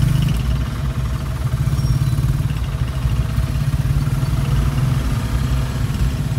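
Engines idling in slow, stopped traffic, heard from inside a small car's cabin: a steady low engine hum with no change through the stretch.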